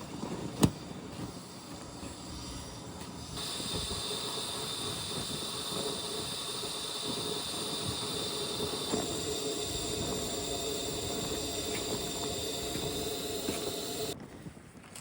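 A steady hiss that starts abruptly about three seconds in and cuts off suddenly near the end, after a single sharp click about a second in.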